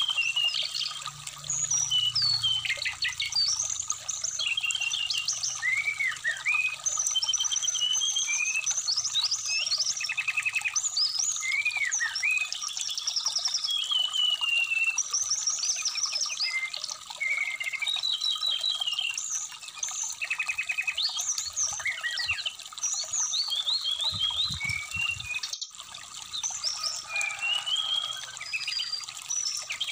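Brown-chested jungle flycatcher (sikatan rimba dada coklat) singing a long, varied run of quick whistles, chirps and trills, over the steady trickle of a shallow stream.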